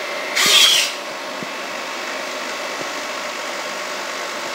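Servo motors of a 3D-printed InMoov bionic hand whirring briefly about half a second in as the fingers move, followed by a steady mechanical hum with hiss.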